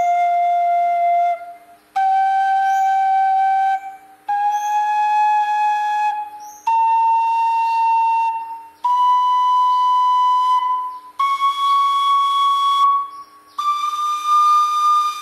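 Khlui lip, the small high-pitched Thai vertical duct flute, playing a slow rising scale: seven clear notes stepping upward one after another, each held about two seconds with a short breath between.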